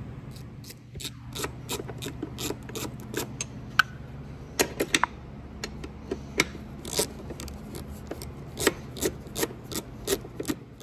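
Hand ratchet with a long extension and 10 mm socket loosening a bolt on a Tohatsu 30D outboard's cover, its pawl giving runs of sharp clicks as the handle swings back and forth, over a steady low hum.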